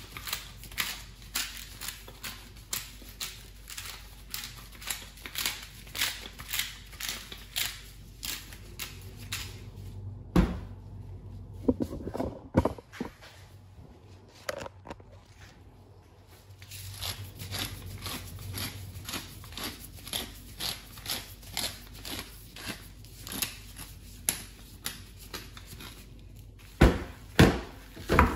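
Salt and pepper grinder being turned: quick crunching clicks, about two a second, in two long runs with a short pause and a couple of thumps between, then a few louder knocks near the end.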